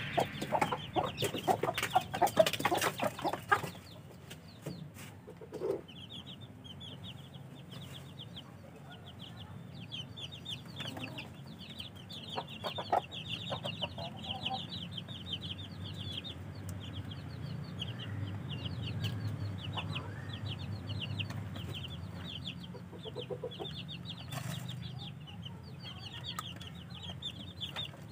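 Baby chickens peeping: a steady stream of short, high, falling peeps, several a second, over a low steady hum. There are scattered clicks and knocks in the first few seconds.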